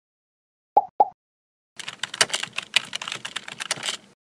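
Computer keyboard typing: a quick, uneven run of key clicks lasting about two seconds. It is preceded by two short pops a quarter second apart.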